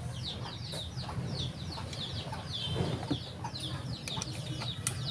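Chickens peeping: rapid, high, downward-sliding chirps, several a second, over a low steady hum, with a few light clicks near the end.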